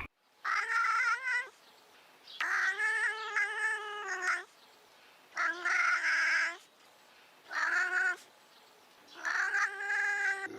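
A cat meowing five times in a row, drawn-out and wailing, the second call the longest.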